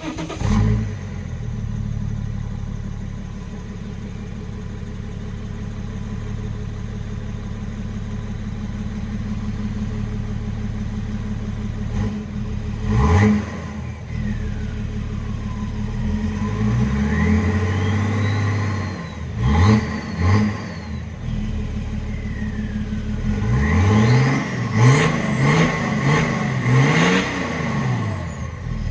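BMW X5 E70's diesel straight-six idling, then revved several times, with a high turbo whistle that rises and falls in pitch with the revs. After a steady idle there is a single blip about thirteen seconds in, a slower rise and fall a few seconds later, and a string of quick revs near the end.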